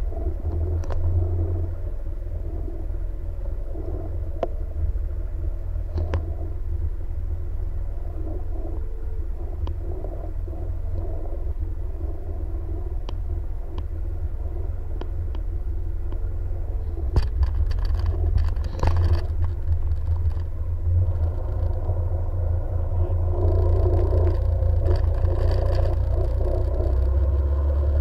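Jet ski engine running steadily under a heavy low rumble. A cluster of sharp clicks and knocks comes about two thirds of the way through, and the sound grows louder near the end.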